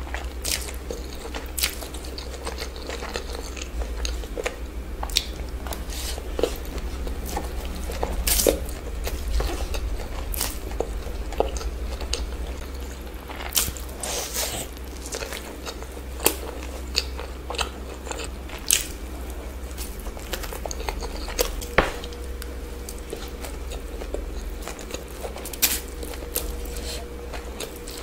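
Close-miked eating sounds of a person working through saucy stir-fried noodles and fried chicken lollipops. Many short, sharp bites and chewing smacks come at irregular intervals throughout, over a steady low hum.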